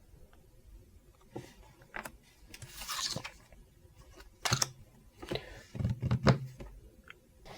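Unboxed art supplies and their packaging being handled on a tabletop: a few light clicks, a rustle of packaging about three seconds in, then a cluster of sharper clicks and knocks.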